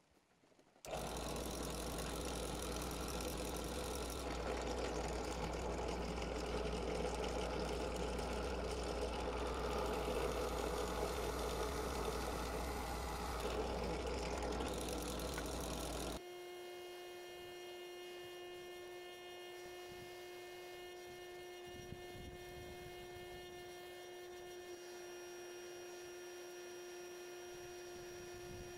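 Benchtop drill press running, its twist bit drilling through a rusty metal plate; it starts about a second in and cuts off suddenly about sixteen seconds in. After that a quieter steady electric hum with a thin high whine continues.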